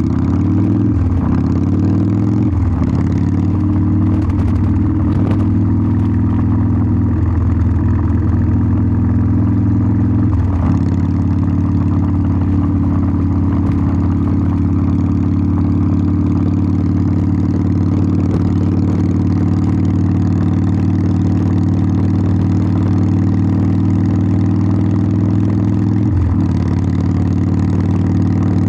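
Harley-Davidson Sportster 1200's air-cooled V-twin exhaust while riding. The engine note rises and drops several times in the first ten seconds or so as the revs change, then holds steady at a cruise, with one more brief change near the end.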